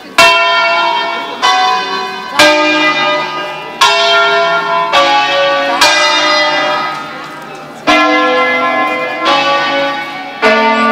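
A ring of six Bizzozero-cast bronze church bells, tuned F#, E, D, C#, B down to the great A bell, sounding a preset solemn peal (concerto solenne). About nine strokes of different pitches come one to two seconds apart, each ringing on into the next.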